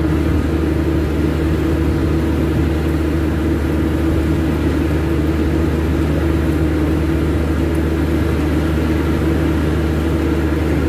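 Steady, loud mechanical drone of running machinery: a constant low hum that holds one pitch throughout, with no starts, stops or knocks.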